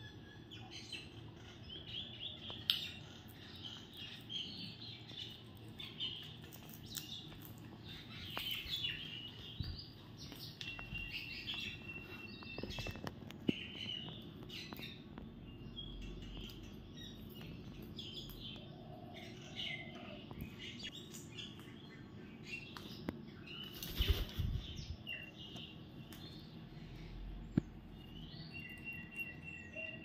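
Pet parakeets chirping and squawking in many short calls throughout, with a few sharp knocks; the loudest knock comes about two thirds of the way through.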